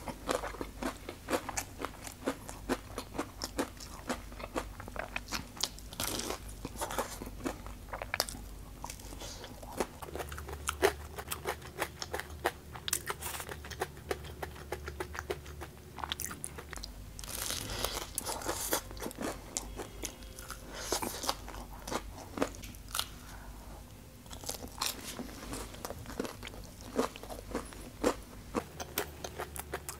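Close-miked biting and chewing of a crispy breaded, fried skewer, with many sharp crunches coming in irregular clusters.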